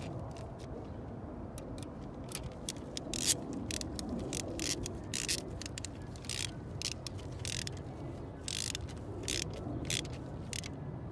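Ratchet wrench working the 12 mm nuts on a car's battery fusible link: irregular short clicking strokes, a few a second, with one sharper click about three seconds in, as the link is tightened down.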